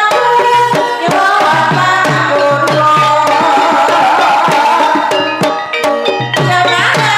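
Javanese gamelan music in the Banyumasan style accompanying a kuda kepang horse dance: kendang hand drums strike a steady pattern under ringing metallophone notes.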